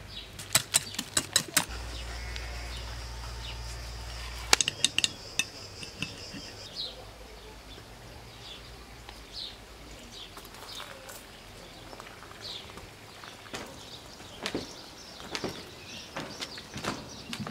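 Sharp clinks like a spoon against a ceramic bowl in the first few seconds, then small birds chirping on and off. A few soft knocks come near the end.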